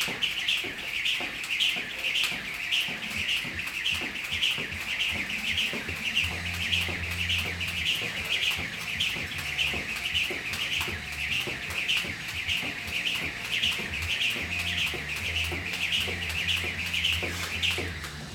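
A jump rope whipping round in a steady rhythm, a little over two short high swishes a second, unbroken throughout.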